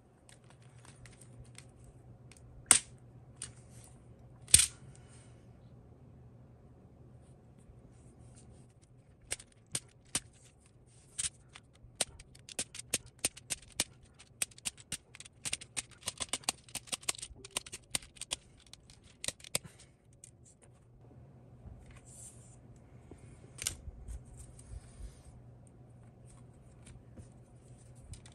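Small plastic parts of a Topre keyboard being handled and taken apart: sharp clicks and clatter, with two loud clicks early and a dense run of quick small clicks through the middle.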